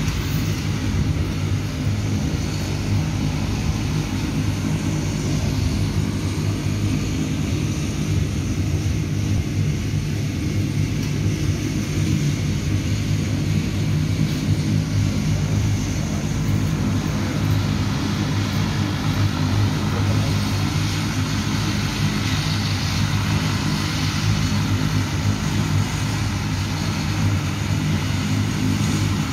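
De Havilland Canada Dash 8's twin turboprop engines running steadily, a low propeller drone while the aircraft holds on the runway before its takeoff roll.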